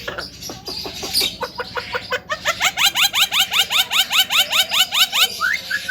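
Javan myna calling: a quick run of short clicking notes, then a long, even series of rapid upward-sweeping whistled notes, about five a second.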